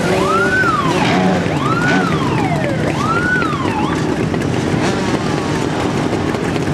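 A siren wailing up and down three times, each rise and fall about a second and a half long, then fading out. Under it, a column of old motorcycle engines runs steadily.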